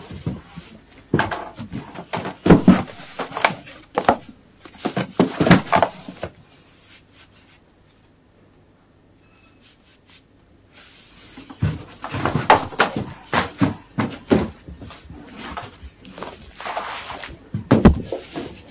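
Irregular thumps, knocks and rustles of a child scrambling off a bed and moving about a small room, in two busy spells with a quieter stretch between.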